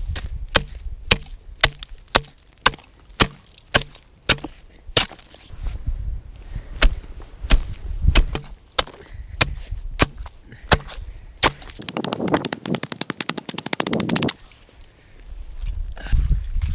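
Steel spud bar chopping a fishing hole through lake ice: sharp strikes about two a second, then a fast rattle of quicker strikes lasting about two seconds.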